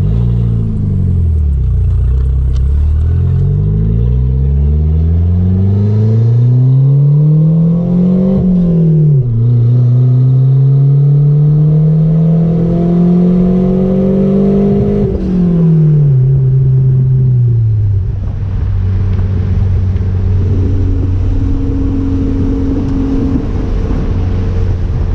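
Chrysler Conquest's turbocharged G54B four-cylinder engine pulling under load. The revs dip briefly, climb steadily, drop at a gear change about eight seconds in, climb again through the next gear, fall away after the throttle is lifted about fifteen seconds in, and settle to a steady run. It is slow to build boost, lazy, which the owner puts down to a possible boost or exhaust leak.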